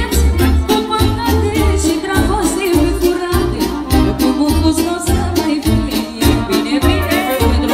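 Amplified live manele music: a woman's singing voice over clarinet, electronic keyboard and a steady dance beat with heavy bass.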